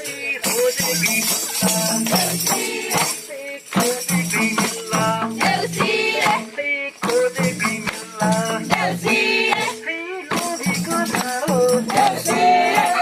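Nepali deusi-bhailo song: voices singing over a steady rhythmic percussion beat with a jingling, rattling shaker, ending on a long held note.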